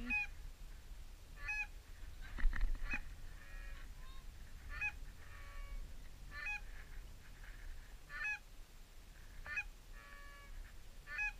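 Canada goose honks, one about every one and a half seconds, with fainter stuttering clucks in between. A couple of soft knocks about two and a half seconds in.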